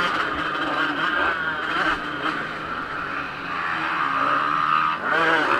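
Yamaha YZ125 two-stroke motocross engine revving under race throttle, its pitch rising and falling with the throttle. It eases off through the middle, then drops sharply and climbs back near the end.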